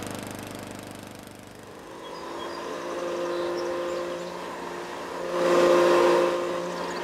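A gas lawn mower engine running and fading away over the first two seconds, then an upright vacuum cleaner's electric motor whining steadily, louder for about a second near the end.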